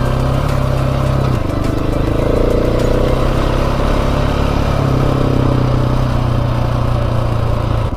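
Dirt bike engine running steadily while riding along a trail, its note shifting slightly in pitch, with a hiss of wind rush over it.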